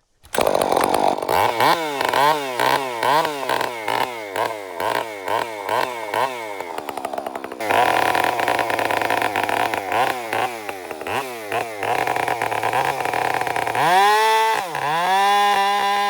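Two-stroke chainsaw engine revved in quick bursts, its pitch rising and falling about twice a second, then held at steady high revs near the end with one brief dip.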